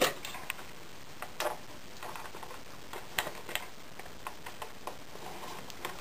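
Banana plugs on test leads being pulled from and pushed into the front-panel input jacks of a Keithley 2015 multimeter, with the leads knocking about: a string of small irregular clicks, the sharpest right at the start.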